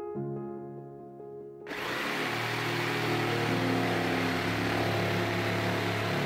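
Black & Decker jigsaw starting abruptly a little under two seconds in, then running loud and steady as its blade cuts into a white board, over background music.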